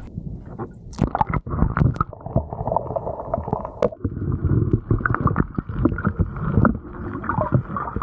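Muffled water sloshing and gurgling with irregular knocks and splashes, starting about a second in, as a landed kingfish is held in a landing net in the water beside a kayak to revive it.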